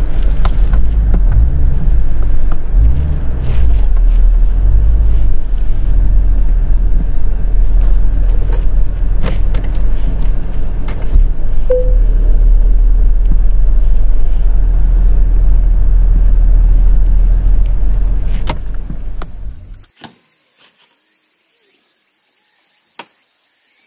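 Porsche's engine running with a steady low drone as the car moves at low speed. The drone stops about twenty seconds in, leaving near silence with a couple of faint clicks.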